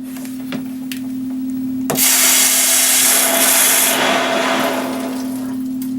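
A sharp click, then a loud rush of water for about two seconds that fades away: the water supply to the water heater being turned back on after the pressure relief valve was replaced.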